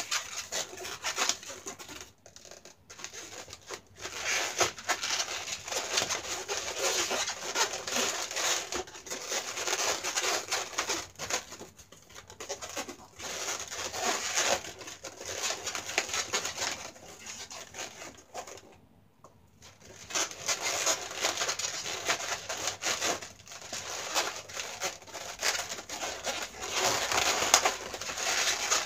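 Inflated latex modelling balloons squeaking and rubbing against each other as they are twisted and woven together by hand, with a short pause about two-thirds of the way through.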